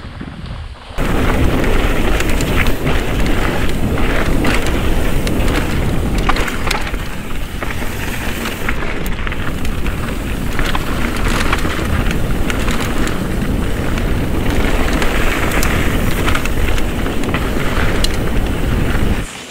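Mountain bike riding fast down a dirt singletrack: a steady rush of wind over the camera microphone with the tyres rumbling on the dirt and many sharp knocks and rattles as the bike goes over rough ground. It starts about a second in and cuts off just before the end.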